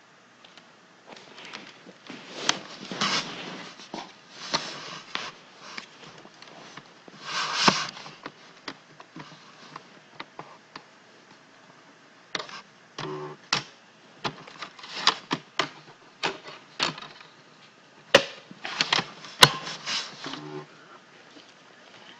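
Irregular clicks, taps and short rustling bursts of handling noise close to the microphone, spread unevenly through the stretch. A brief low hum-like sound comes about two-thirds of the way through, and another near the end.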